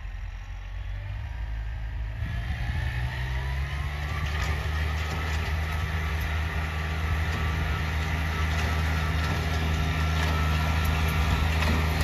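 Compact tractor engine running under load as the tractor tows a sled through snow; its pitch rises about two seconds in as it speeds up, then holds steady while it grows louder as it comes closer.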